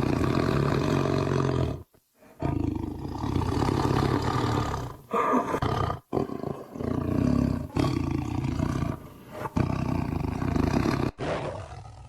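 Tiger growling: a run of long, deep growls, broken by sudden short gaps about two, six and eleven seconds in, and fading away near the end.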